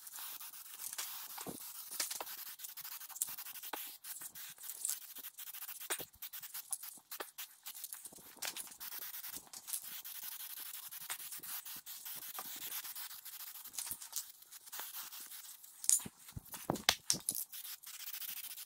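Aerosol can of clear gloss polycrylic spraying in an even hiss, with small clicks and handling noises throughout and a few louder knocks near the end.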